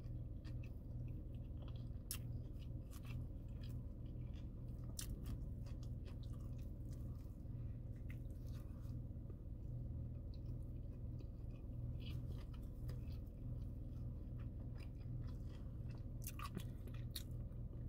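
Close-up chewing and biting into a fried fish sandwich, with scattered crunchy clicks from the fried coating, over a steady low hum.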